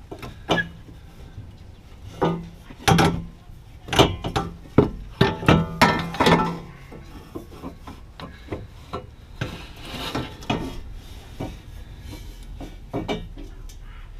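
Stainless steel long-tube exhaust header knocking and scraping against the engine and chassis as it is worked up into place: irregular metal clunks and rubbing, busiest in the first half.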